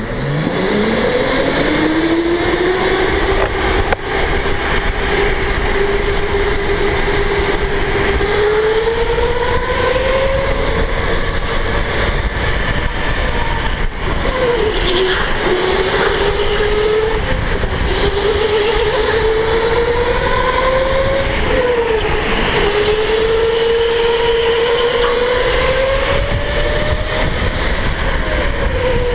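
Electric go-kart motor whining, heard from on board: the whine climbs steeply as the kart accelerates in the first second, then rises and falls with its speed, dipping sharply a few times as it slows, over a steady low rumble.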